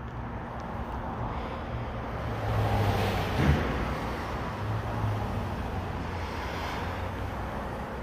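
Outdoor road traffic noise: a steady low hum with a vehicle swelling past about three seconds in, and a short low bump at its loudest point.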